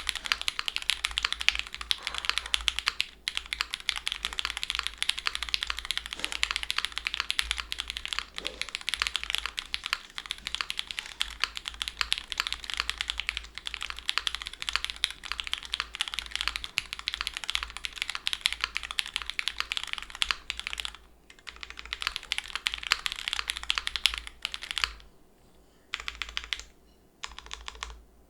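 Fast, continuous typing on a Monokei Kei R2 60% mechanical keyboard with lubed SP-Star Sacramento switches on an O-ring-mounted aluminum full plate and GMK keycaps: dense key clacks, the spacebar now and then. The uploader finds the sound deeper than expected and suspects the switches are overlubed. Near the end the typing breaks into a few short bursts with pauses between.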